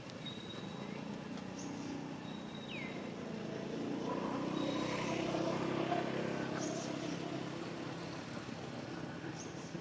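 A motor vehicle's engine hum that builds to its loudest about halfway through and then eases off, as a vehicle going past would. A few short high bird chirps sound over it.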